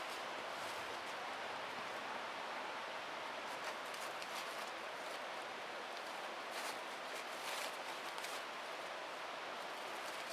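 Steady rushing outdoor background noise with a few faint rustles and ticks scattered through the middle.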